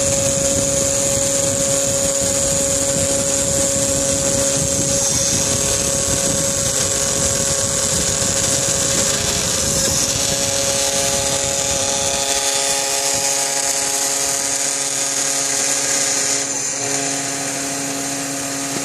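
CNC router spindle whining steadily as its small end mill cuts through a clear plastic panel, with a rough cutting noise underneath. About twelve seconds in the rough low noise drops away, leaving the steady high spindle whine.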